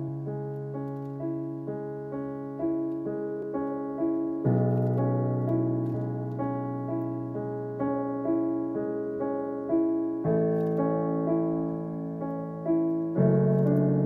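Slow solo piano music: held low chords that change every few seconds under a repeating figure of single notes struck about once a second.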